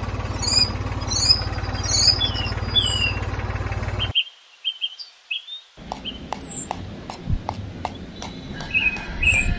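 Small electric motor of a toy tractor whirring steadily for about four seconds, then cutting off suddenly; birds chirp throughout. After a short gap come scattered light clicks.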